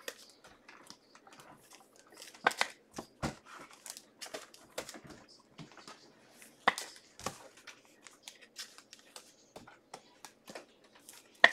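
Trading cards and their plastic packaging being handled on a table: soft crinkling and shuffling with scattered sharp clicks and taps, a few of them louder.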